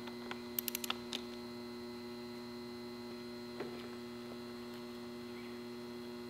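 Steady electrical mains hum, with a few faint clicks about half a second to a second in and one more near the middle from hands working a dirt bike's handlebar lever.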